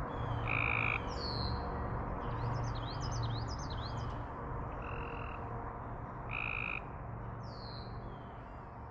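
Frogs calling at a pond, with short repeated calls and birds chirping over them, including a quick run of chirps about three seconds in. The sound slowly fades toward the end.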